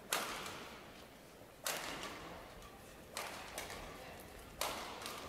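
Badminton rally: rackets striking the shuttlecock about every second and a half, five sharp hits, each with a reverberant tail from the hall.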